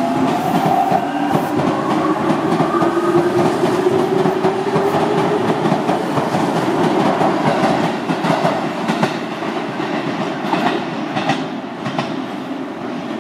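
Electric commuter train heard from inside the car as it slows toward a station. The motors whine and glide in pitch in the first few seconds over the running rumble. Later come scattered clicks of the wheels over rail joints, and the sound grows quieter near the end.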